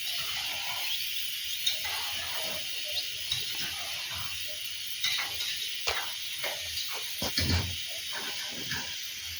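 Short, scattered chirps of small birds over a steady high hiss, with a few dull knocks about three-quarters of the way through.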